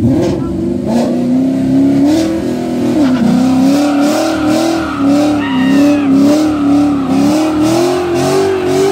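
Ford Mustang GT's 5.0 V8 revving hard through a burnout as the rear tyres spin and smoke. The engine is held high, and from about three seconds in its pitch rises and falls about twice a second.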